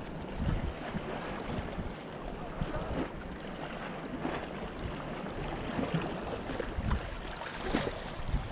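Small waves lapping and sloshing against rocks at the water's edge, with a few sharper splashes.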